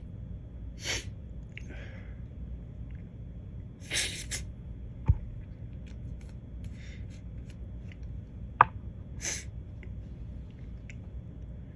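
A man's short, sharp sniffs and gasping breaths through the nose, three bursts spread out, as he tries to bring on a stubborn sneeze that won't come. Two sharp clicks sound midway.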